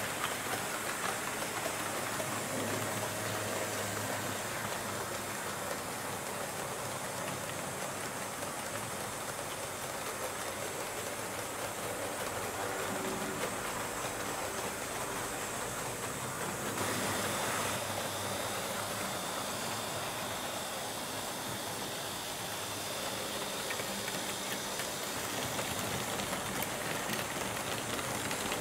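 H0-scale model trains running on a layout: a steady rolling rumble of the wheels on the track, with motor noise and a little clatter. The noise changes character about two-thirds of the way through.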